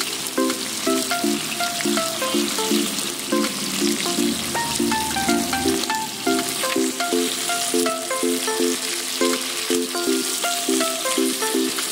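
Hilsa fish pieces frying in hot oil in a kadai, a steady sizzle with a metal spatula stirring among them. Background music with a repeating melody plays over it and is the loudest part.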